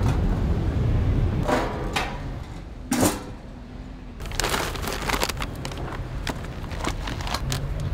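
Stainless steel pans and lid of a homemade charcoal smoker grill clinking and knocking as they are handled, with a sharp knock about three seconds in. After that comes a steady rushing noise with scattered small ticks.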